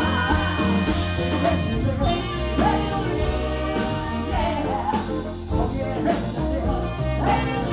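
Live band music: electric guitar, bass guitar, drums and keyboards playing under singing.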